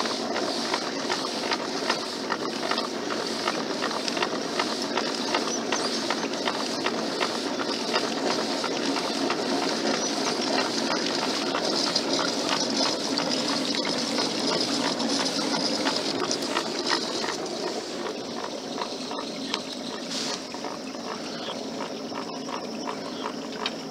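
Water rushing and splashing along a pedal-powered boat under way, with a steady hiss and many small clicks and knocks.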